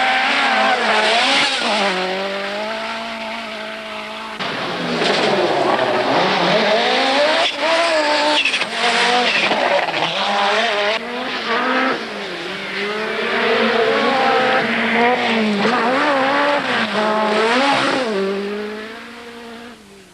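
Group B rally car engines revving hard, the pitch climbing and falling through gear changes, in several shots joined by abrupt cuts. The sound fades away near the end.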